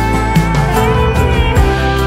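Background music: a guitar-led instrumental track with a steady beat.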